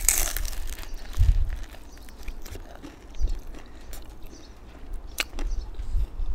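A crunchy bite at the start, then chewing with small sharp clicks, over low rumbling bumps on the microphone.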